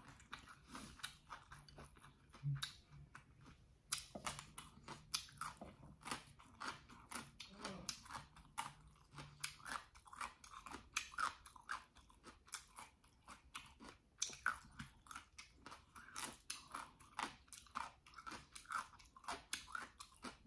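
A person chewing chewy jjolmyeon noodles and vegetables close to the microphone: a steady, irregular run of wet mouth clicks and smacks.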